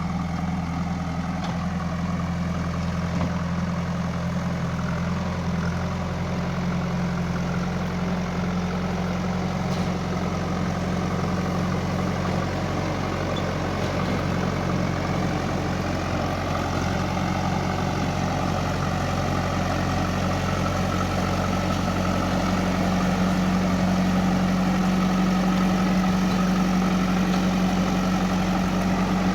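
Diesel engine of a JCB 3DX backhoe loader running steadily at a low, even speed, a little louder in the last few seconds.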